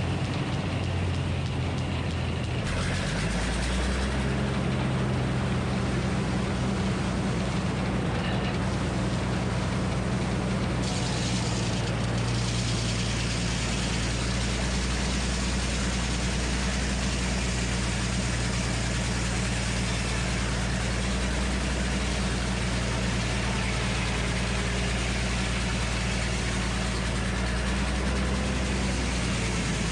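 Minneapolis Moline HEB 605 cubic inch engine running steadily, driving the Frick circular sawmill. Its note changes about three seconds in, as more hiss comes in above it.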